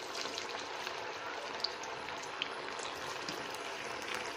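Moong dal vadas deep-frying in hot oil over a low flame: a steady sizzle with scattered small pops and crackles.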